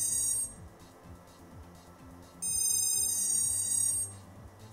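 ESC calibration beeps from a quadcopter's Emax 1806 brushless motors, driven by Emax 12A SimonK ESCs while they learn the throttle range. Two long, steady, high-pitched electronic tones: one ends about half a second in, and the next starts about two and a half seconds in and lasts a bit over a second and a half.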